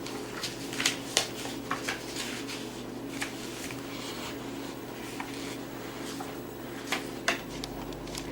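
Steady low hum of room tone, with scattered light clicks and taps at irregular moments.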